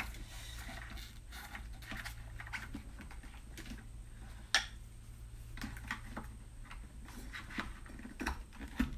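Light plastic clicks, taps and rustling as LiPo battery packs are handled and pushed into an RC truck's plastic battery tray, with one sharper click about halfway through.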